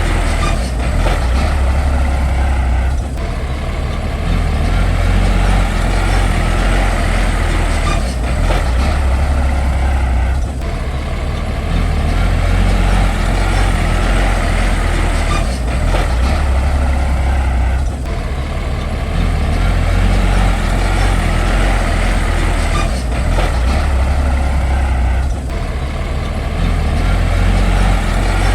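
Heavy diesel earthmoving machinery running, a deep engine rumble with clanking noise over it that eases briefly about every seven to eight seconds.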